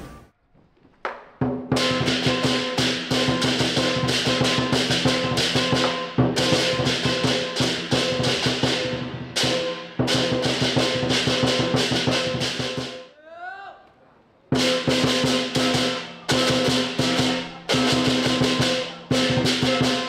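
Southern lion dance percussion: a big drum beaten in fast, dense strokes together with clashing cymbals and a ringing gong. It starts about a second and a half in, stops briefly several times, and pauses for about a second and a half past the middle.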